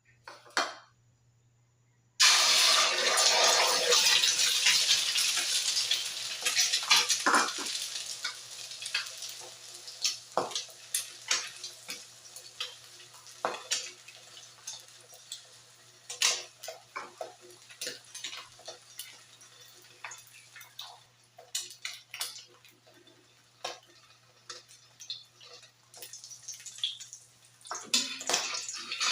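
Egg frying in hot oil in a pan. A loud sizzle starts suddenly about two seconds in and slowly dies down, dotted with scattered pops and clicks. The sizzle swells again near the end.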